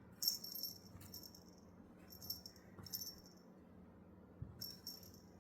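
A small bell on a cat toy jingling in five short shakes as the cat plays with it.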